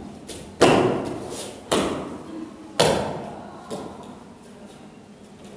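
Sharp slapping impacts from a barefoot pencak silat solo form on foam mats: three loud ones about a second apart, then a softer fourth, each echoing briefly in the hall.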